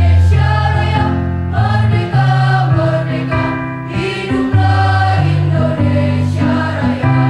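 Girls' choir singing in unison over steady low sustained accompaniment notes.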